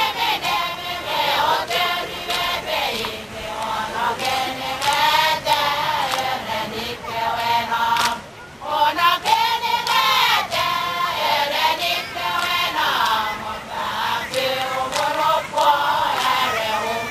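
A chorus of Satawalese women chanting a song in unison for a seated dance, punctuated by sharp hand claps. The singing breaks off briefly about eight seconds in, then starts again.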